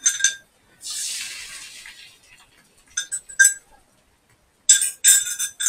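Kitchen utensil clinking against cookware in three quick clusters of taps, each tap ringing briefly, with a short fading hiss about a second in.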